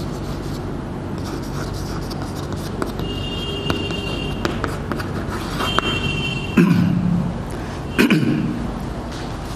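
Chalk writing on a blackboard: light taps and scratches, with short high squeaks in the middle, over a steady low hum. Near the end come two louder knocks, about a second and a half apart.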